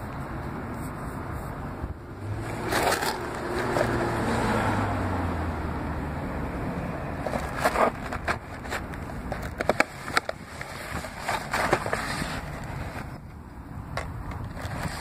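Outdoor background noise with a vehicle passing, its low engine tone dropping in pitch, about two to five seconds in. From about halfway on, the cardboard Star Crunch box is handled and turned over, giving scattered clicks and scrapes.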